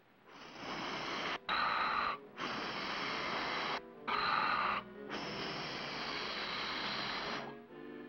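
Cartoon sound effect of air rushing in five long hissing puffs with short breaks between them; two of the shorter puffs have a hollow tone. Orchestral music comes in near the end.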